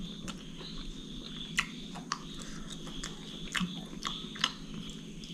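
A man eating grilled mutton leg meat: chewing, with small irregular clicks from his mouth and hands on the plate.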